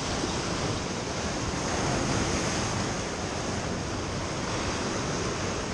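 Ocean surf breaking and washing over a rocky shoreline: a steady, continuous rush of churning water.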